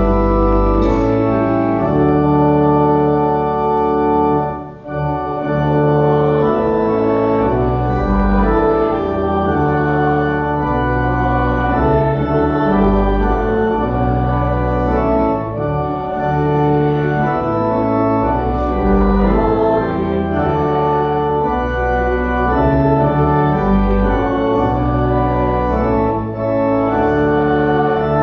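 Church organ playing a hymn in held chords that change every second or so, with a short break between phrases about five seconds in.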